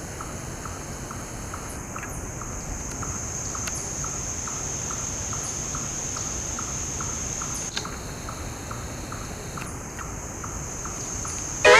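Insect chorus in the woods: a steady high-pitched drone with a regular, lower chirp about three times a second.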